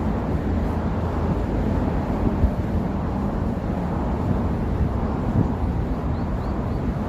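Steady low rumble of city street traffic, with wind buffeting the microphone. Three faint short high chirps come about six seconds in.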